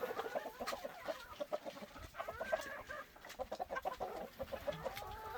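A flock of chickens clucking as they feed on kitchen scraps, many short overlapping calls running on without a break.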